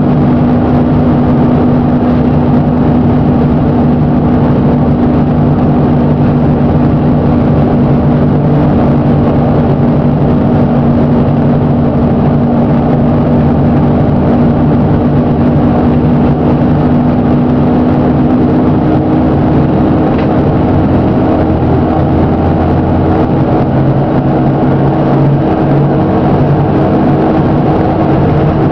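Plaxton President double-decker bus's diesel engine running with a steady drone and the bad engine knock the video is about; the note shifts slightly about three quarters of the way through.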